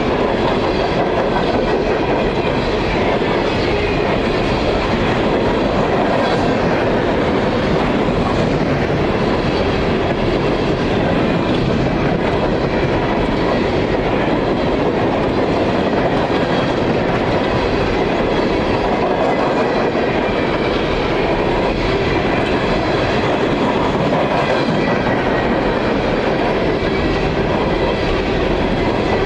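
Empty coal hopper cars of a freight train rolling steadily past, wheels clicking over the rail joints.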